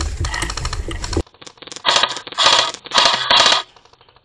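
Airsoft guns firing full-auto in three bursts of rapid clicks. Before them, a loud rumble with clicking cuts off suddenly about a second in.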